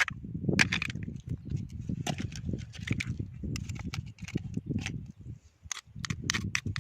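Oyster shells clacking and scraping as they are handled and knocked loose, a rapid irregular series of sharp clicks and knocks over a low steady rumble.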